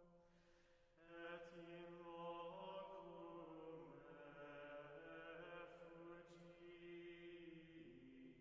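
Quiet Gregorian chant: voices singing a single slow melodic line of long held notes, changing pitch every few seconds, a little louder from about a second in.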